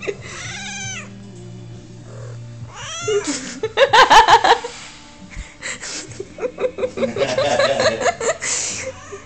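Domestic cat meowing and yowling in a string of calls, loudest about four seconds in, followed by a quick run of short cries.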